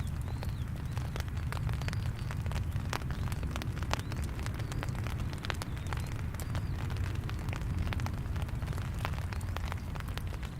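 Raindrops ticking sharply and irregularly on a nearby surface over a steady low rumble in the distance, of the kind made by aircraft engines at an airport.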